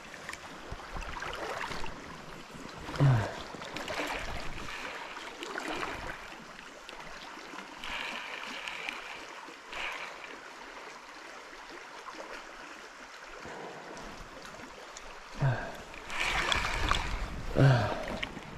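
A river's water flowing steadily, with a few brief louder sounds about three seconds in and again near the end.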